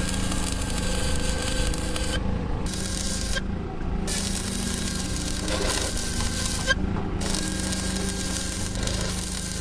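Stick (shielded metal arc) welding on steel rebar: the arc crackles and hisses steadily and stops briefly three times, at about two, three and a half and seven seconds in. A steady low hum runs underneath.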